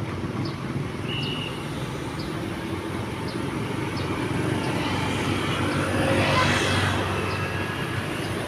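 Diesel engine of a large coach bus running slowly as it manoeuvres, a steady low drone, with faint regular ticks about every 0.7 s. A short high beep sounds about a second in, and a louder rush of vehicle noise swells and fades around six to seven seconds in.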